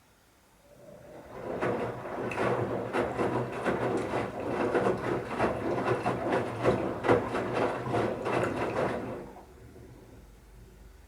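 Bauknecht Super Eco 7615 washing machine's drum turning during the wash, wet towels tumbling and water sloshing with a steady motor hum underneath. It starts about a second in, runs for about eight seconds and stops, as the drum pauses between turns.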